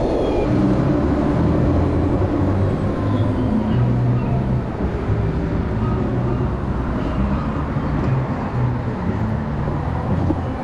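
Harley-Davidson LiveWire electric motorcycle slowing down: a faint motor whine that falls slowly in pitch as the bike decelerates, over steady wind and road noise.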